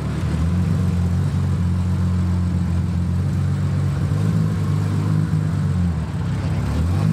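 Classic Porsche 911's air-cooled flat-six engine idling with a steady low note, the pitch rising slightly near the end.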